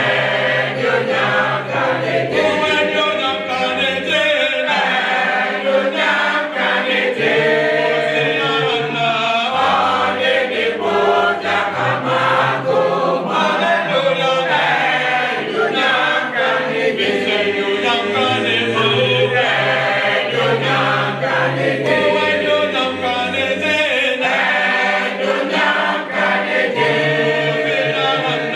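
A group of voices singing a cappella in harmony, with a low bass part holding long notes beneath the melody.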